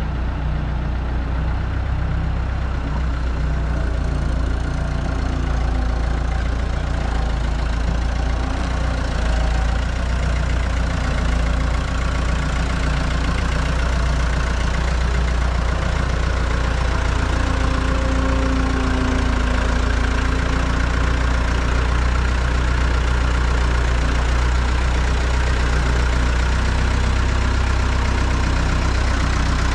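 Bobcat skid-steer loader's engine running steadily as it moves a load of lumber on its pallet forks.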